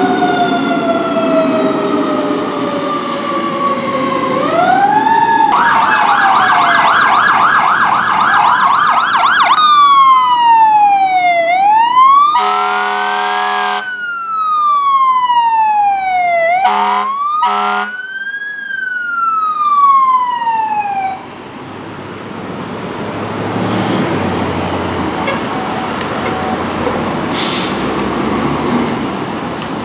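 Fire truck siren: a slow winding tone, then a fast warble for about four seconds, then a rising-and-falling wail, broken by one long air-horn blast about twelve seconds in and two short blasts a few seconds later. The siren stops about two-thirds of the way through, leaving engine and traffic noise with a short hiss near the end.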